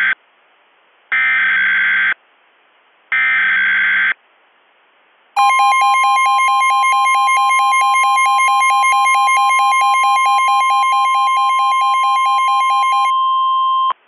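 SAME digital header of an emergency alert: the end of one and then two more buzzy, screeching data bursts about a second long each, a second apart. After a short pause comes the steady NOAA Weather Radio warning alarm tone, held for about eight seconds and overlaid for most of that time by the Midland WR120 weather radio's rapid pulsed alert beeping, which stops about a second before the tone ends.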